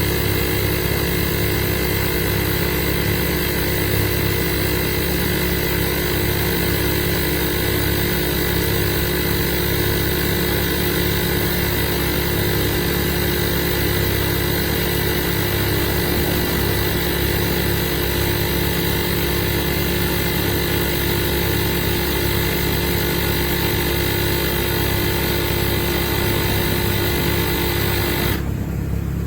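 12V portable tire inflator's air compressor running steadily, a loud motor-and-piston drone with a fast low flutter. Near the end its higher part drops away.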